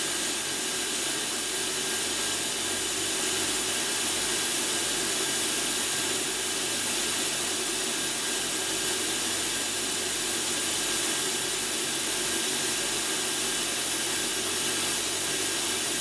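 Steady hiss of air running through the ultrasonic opti-fluxer of an Electrovert Electra wave solder machine, switched on and waiting in standby before it starts spraying.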